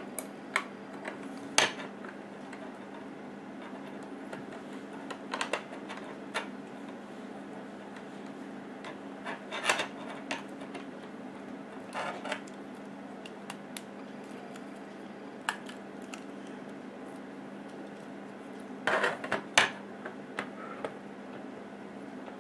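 Plastic Lego bricks clicking and clattering as they are handled and pressed together, in scattered sharp clicks with a quick cluster near the end. A low steady hum runs underneath.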